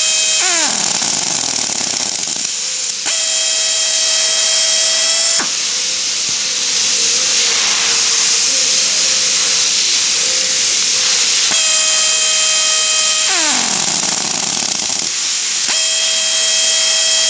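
Pneumatic rivet nut gun running: its air motor whines at a steady high pitch, then winds down with a falling pitch, alternating with long stretches of loud compressed-air hiss. The whine comes in three spells, and the longest hiss runs through the middle.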